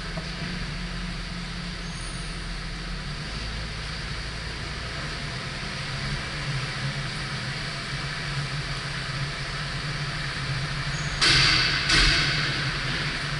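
Steady low hum of a car driving in city traffic, from engine and tyres. About eleven seconds in come two short, loud hisses in quick succession.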